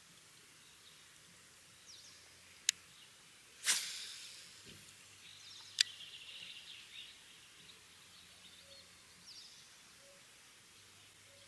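A cast with a baitcasting rod and reel: a sharp click, a swish that fades over about a second, a short whirr, then a second sharp click as the reel is engaged. Faint birdsong around it.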